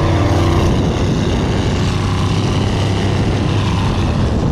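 A vehicle being driven at speed: a steady engine drone that, under a second in, turns into a rough rush of engine, wind and road noise.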